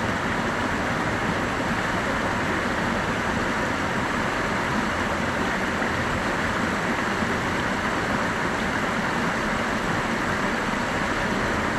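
Steady rush of river water flowing over rocks, an even hiss-like sound that doesn't change.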